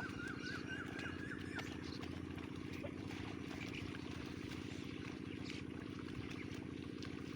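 A small engine running steadily with a low, even drone, and birds chirping over it, with a quick run of repeated chirps in the first second and a half.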